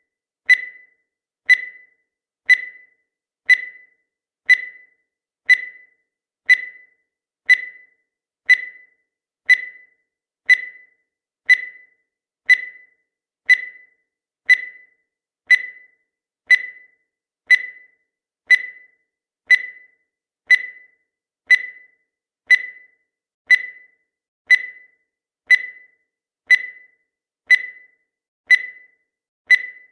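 Countdown timer ticking with a short electronic beep once every second, each beep sharp and quickly fading.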